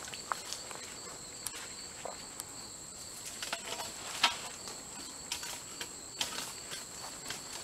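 Scattered knocks, clicks and scrapes of a climbing tree stand being worked up a tree trunk, the loudest knock about four seconds in. Under them runs a steady high buzz of insects.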